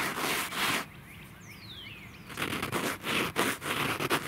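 Hand rubbing a frost-crusted fabric cover, a crisp scratchy rustle in two spells: one ending a little under a second in, the other starting about two and a half seconds in.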